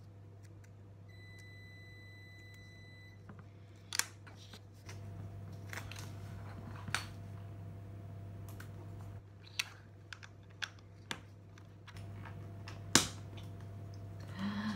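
Small plastic Woolworths Bricks pieces clicking and snapping together as they are pressed into place by hand: irregular sharp clicks, the loudest snap about 13 seconds in. A faint high steady beep sounds for about two seconds near the start.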